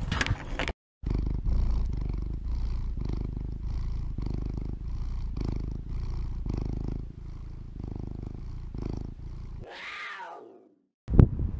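Domestic cat purring loudly and steadily, pulsing rhythmically about twice a second. Near the end comes a short cat cry that slides steeply down in pitch and cuts off abruptly.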